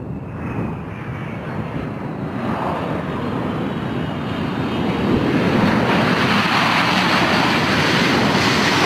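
Boeing C-17 Globemaster III's four turbofan engines running at power: a dense rush with a faint high whine, swelling steadily louder.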